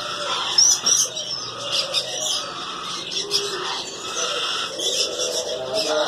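Many caged parrots chirping and chattering together: a steady mix of short, overlapping high calls, none standing out above the rest.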